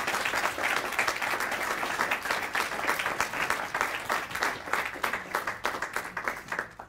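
Audience applauding, a dense steady clapping that thins a little near the end.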